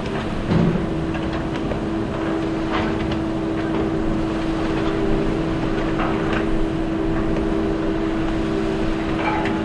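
Concrete pipe-making machinery running with a steady motor hum, with a few faint clanks about three seconds apart.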